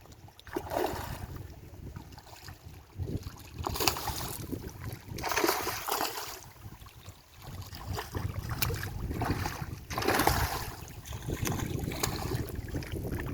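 Wind rumbling on the microphone, with swells of rushing noise every few seconds.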